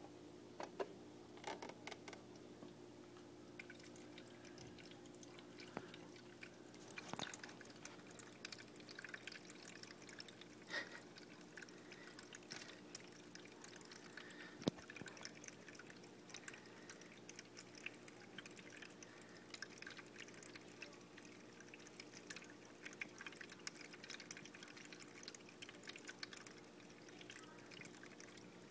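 Drinkwell pet water fountain running: a thin stream trickling and dripping from the spout into the bowl over the steady faint hum of its small pump, with scattered small drips and splashes.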